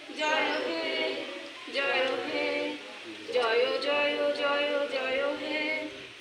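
A group of voices singing together without instruments, in three sung phrases with short breaks between them.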